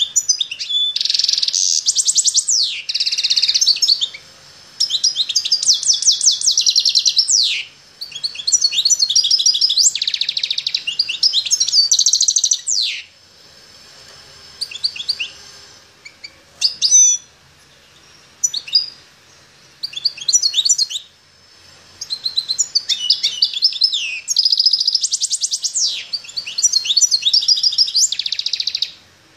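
Caged chaffinch singing: loud, rapid trilled phrases of two to four seconds, several ending in a quick downward flourish. In the middle the phrases give way to short separate notes for several seconds before the full song returns.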